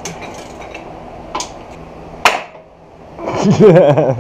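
Light metallic clicks and knocks of tools and suspension parts, with one sharp, loud metal strike a little past halfway. A person's voice, without clear words, follows near the end.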